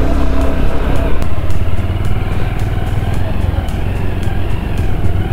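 Motorcycle engine running steadily in fourth gear while riding over a rough dirt road, a continuous low rumble mixed with road noise.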